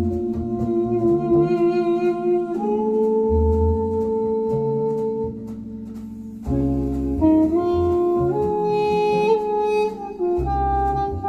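Recorded music, with a melody in long held notes over pulsing bass notes, played back through Hans Deutsch Poseidon horn loudspeakers. It turns briefly softer about halfway through.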